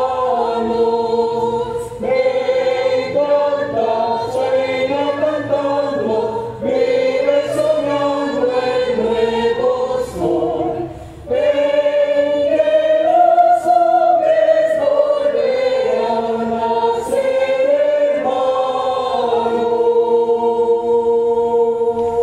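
Mixed choir of men's and women's voices singing a villancico (Spanish Christmas carol) in held chords, with a brief break about eleven seconds in. It ends on a long sustained final chord that cuts off near the end.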